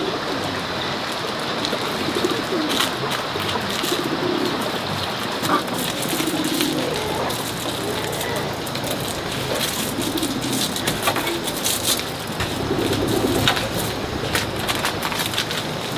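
A dove cooing over and over, low coos every couple of seconds, over a steady hiss with scattered light rustles and clicks.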